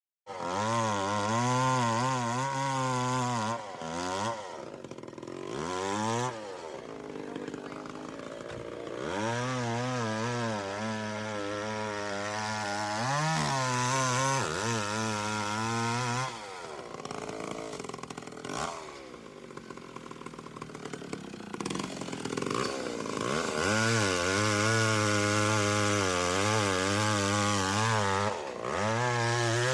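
Chainsaw engine running, revved up to high speed in several long bursts of a few seconds each, dropping back to a lower, quieter speed between them, its pitch wavering throughout.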